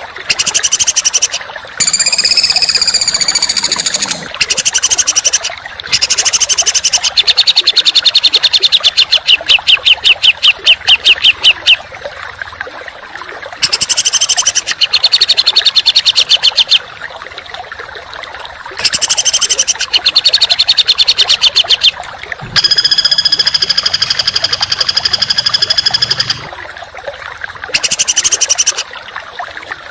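Songbird song of the harsh, rapid kind used in masteran training recordings. Loud phrases come in bursts of one to four seconds with short pauses between them, including a fast run of repeated notes and a long held buzzy note. A steady hiss runs underneath.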